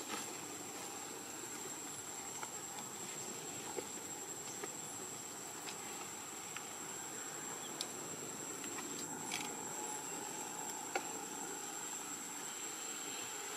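Insects droning with one steady high-pitched tone over a soft outdoor hiss, with a few faint clicks.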